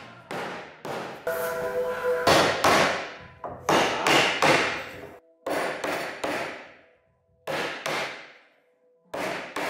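Yellow-headed mallet knocking a notched pine beam home into its lap joint: sharp knocks, mostly in quick groups of three, each ringing briefly, with short pauses between the groups.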